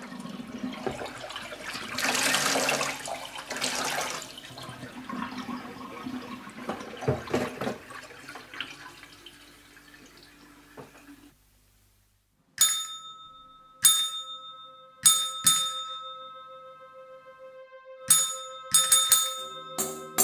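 A toilet flushing, loudest in its first few seconds, then the water draining away over about ten seconds. After a second of silence comes a jingle of a dozen or so bright struck notes that ring on.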